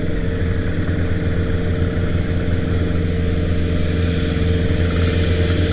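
Vehicle engine running at a steady cruise, an even hum that holds one pitch.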